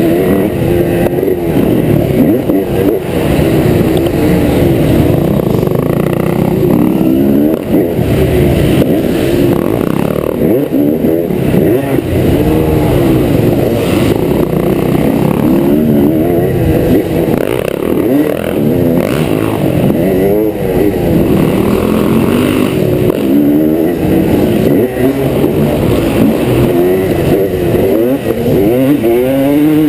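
Onboard sound of a 2003 Honda CR250R's single-cylinder two-stroke engine being ridden hard on a dirt track. It revs up and falls off again and again, the pitch rising and falling through corners and over jumps.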